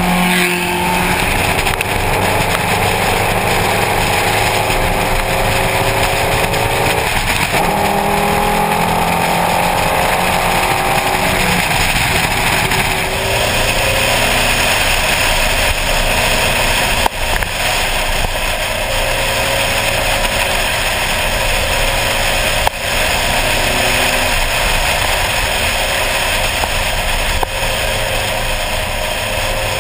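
Classic car driving on the road, heard from a camera mounted on its body: the engine rises in pitch as it accelerates over the first ten seconds or so, then runs steadily at speed under loud wind and road noise, with a couple of brief knocks.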